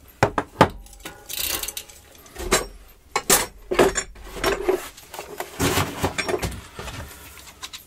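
Bicycle cassette being taken off a rear wheel: a run of metal clicks, clinks and short scrapes as the loosened lockring is unscrewed and the sprockets come off the freehub body.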